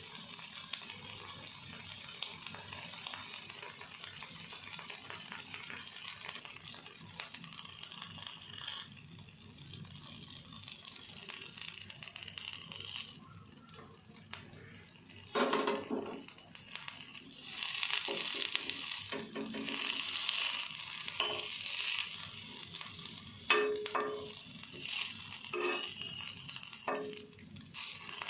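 Something sizzling in a pan as it is stirred, a steady hiss, with the utensil knocking and clinking against the pan several times in the second half.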